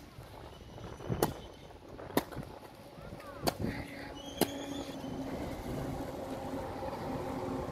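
Wind rumbling on the microphone with a few sharp knocks, then from about four seconds in a steady motor vehicle engine hum that keeps building.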